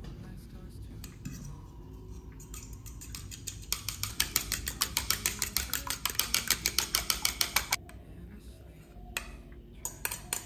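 A metal fork beating a raw egg in a small ceramic bowl: a fast, even run of clinks, about seven a second, lasting around four seconds. A few separate clinks follow near the end.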